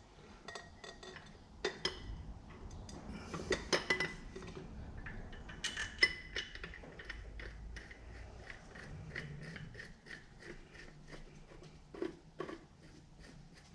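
Light metallic clinks and taps as the oil filter canister and its centre bolt are fitted by hand under a Massey Ferguson 35X engine, ending in a run of small, evenly spaced ticks, about three a second.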